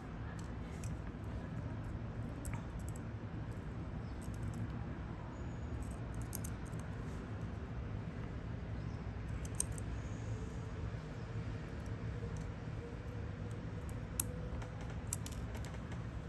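Scattered light clicks and small scrapes of a hand tool working around the edge of an Apple Watch Series 8's cracked round back glass, over a steady low hum.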